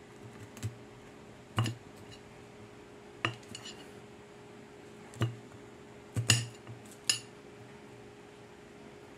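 Small kitchen knife slicing through bitter gourd and tapping on a plastic cutting board: about seven sharp, irregularly spaced knocks, roughly one a second.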